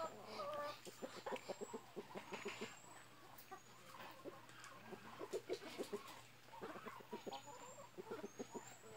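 Chickens clucking in short, quick repeated notes, fairly faint, with a few thin rising bird chirps.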